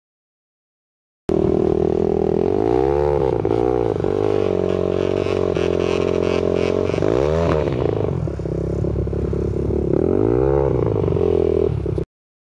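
ATV engine revving up and down as the quad is ridden over rough snowy ground, its pitch rising and falling several times. It starts abruptly about a second in and cuts off just before the end.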